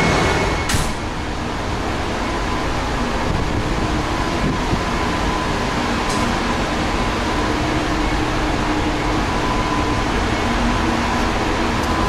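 Steady machinery and ventilation noise inside a cargo ship's engine control room, with the engine room's running plant heard through the bulkheads as a constant hum and a faint steady whine. A single sharp click comes a little under a second in, as the noise drops from the louder engine room.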